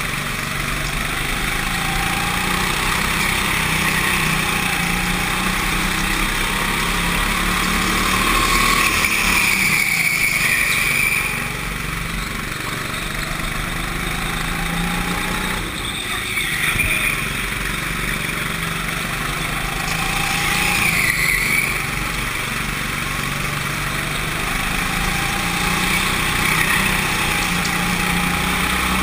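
Go-kart engine running hard, heard from the driver's seat, its revs falling and rising again several times as the kart slows for corners and accelerates out of them.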